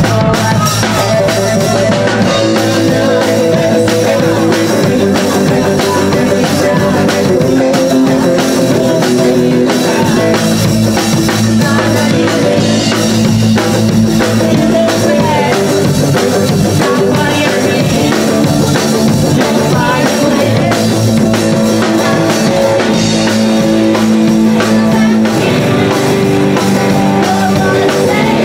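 Rock and roll band playing live: electric guitar, upright bass and drum kit, loud and steady.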